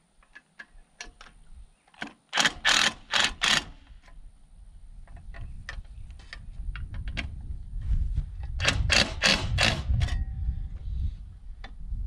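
Cordless drill driving screws into a metal outlet box in two sets of short trigger bursts, about two seconds in and again near nine seconds, with light clicks and taps between.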